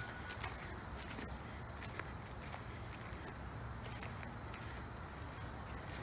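A faint, steady high-pitched insect drone from the woods, with a few soft footsteps on the dirt trail.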